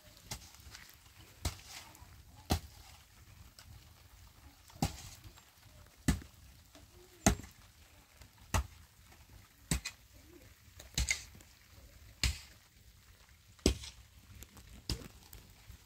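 A dozen sharp chopping blows, evenly paced about one every second and a quarter.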